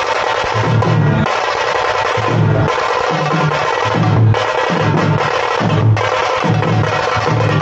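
Loud music with a heavy drum and bass beat, about two bass thumps a second.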